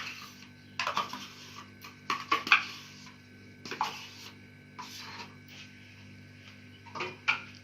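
A spoon scraping and knocking against a bowl in about half a dozen short strokes, as cut fruit is mixed with yogurt, over a low steady hum.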